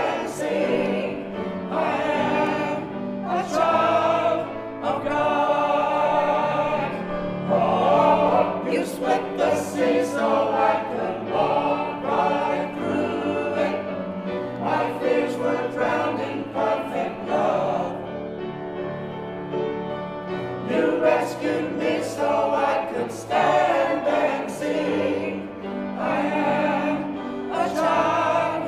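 Mixed church choir of men's and women's voices singing together.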